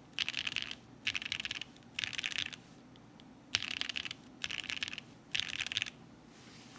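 Custom mechanical keyboard with lubed, filmed and spring-swapped Gateron Sage linear switches being typed in six quick flurries of clacking keystrokes, each about half a second long, with short pauses between.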